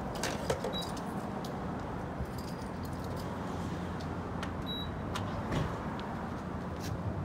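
Gas pump being handled: the fuel nozzle lifted from its holder, a grade button pressed and the rubber hose pulled out, giving scattered light clicks and knocks over a steady low hum.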